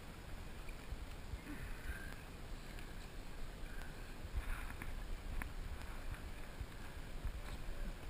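Low wind rumble on the microphone with faint water sounds around a small plastic kayak, broken by a few soft knocks and one small click.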